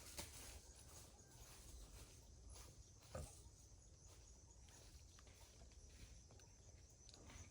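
Near silence: faint outdoor background with a few soft clicks, one a little clearer about three seconds in.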